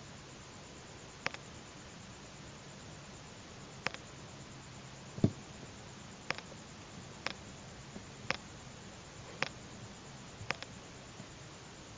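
Small sharp clicks of plastic beads knocking together as nylon thread is pulled through them, about one a second, with one duller knock about five seconds in, over a steady faint hum and hiss.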